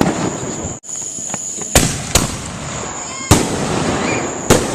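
Consumer fireworks going off: five sharp bangs over about four and a half seconds, with steady crackling between them.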